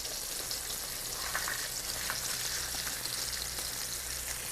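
Breaded catfish deep-frying in hot oil, a steady sizzle with a crackle of small pops. A faint clink about a second in.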